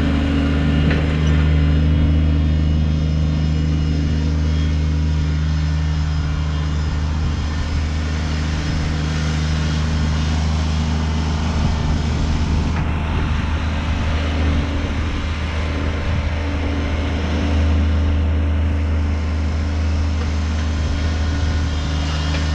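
Kubota BX25 subcompact tractor's three-cylinder diesel engine running steadily, working to drag a heavy oak log on its loader forks.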